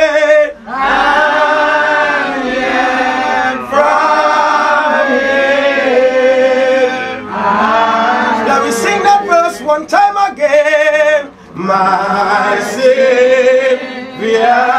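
A church congregation singing a hymn together, voices drawing out long, wavering held notes in phrases with short breaks between them.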